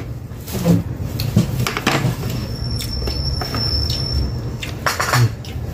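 Close-up eating sounds: a person chewing a mouthful of rice and chicken, with a few light clicks and knocks from hands and plates. Under it runs a steady low hum, and a faint thin high whine lasts about two seconds in the middle.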